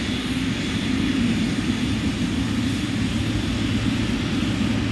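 Jet airliner engines running steadily: a continuous low rumble with a faint steady whine above it.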